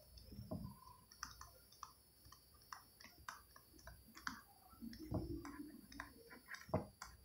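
Faint, irregular clicks and taps of a stylus on a tablet screen as words are handwritten, with one louder tap near the end.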